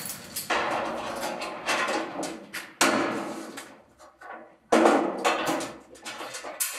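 Key working the lock of a sheet-metal apartment mailbox, its thin door clattering and rattling as it is opened. The rattling comes in three main bursts about two seconds apart, each starting sharply and dying away.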